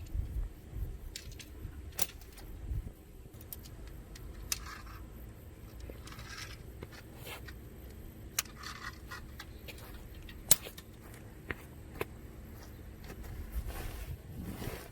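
Scattered sharp metallic clicks and rattles with a few short rustles, from handling tent-shelter gear such as poles and pegs during setup.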